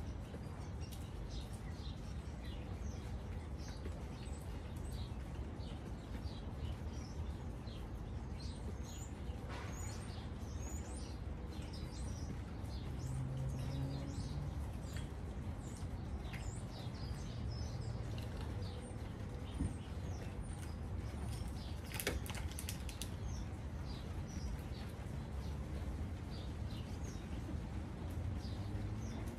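Garden birds chirping and calling: many short calls, one after another, over a steady low background noise.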